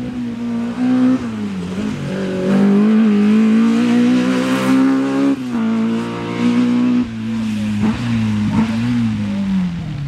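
Rally car engine under hard acceleration, its pitch climbing for a few seconds and then dropping abruptly twice at gear changes as the car passes.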